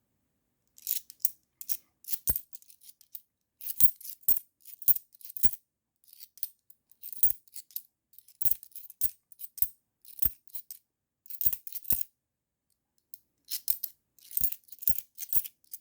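50p coins clinking and sliding against one another as they are pushed through by hand: irregular sharp metallic clicks and short jingles, in bursts with brief pauses between.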